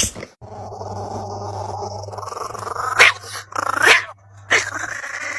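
A dog growling low and continuously, broken by two short sharp yips about three and four seconds in.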